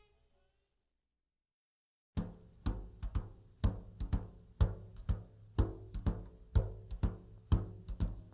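Background music: about two seconds of silence, then a new song starts with a steady drum beat of about two beats a second.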